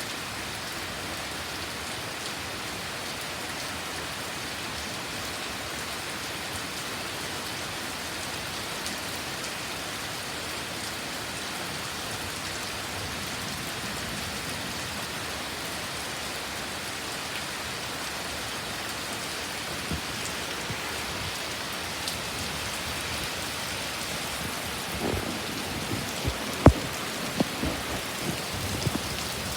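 Heavy thunderstorm rain falling steadily and hard. Near the end come a few sharp taps, the loudest about 26 seconds in.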